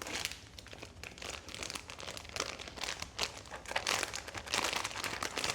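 Crinkly blind-box packaging rustling and crackling in the hands as a Pop Mart figure is unwrapped, with a dense run of irregular crackles.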